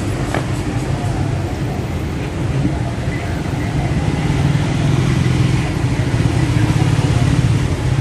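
Street traffic: cars running past on a busy city road, a steady low rumble that grows louder about five seconds in.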